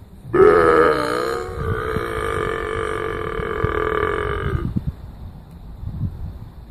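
A cow giving one long moo of about four seconds. Its pitch bends at the onset, then it holds steady before stopping abruptly.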